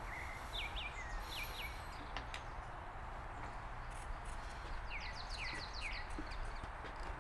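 Birds chirping over a steady background hiss: a few short falling chirps near the start and a quicker run of them about five seconds in.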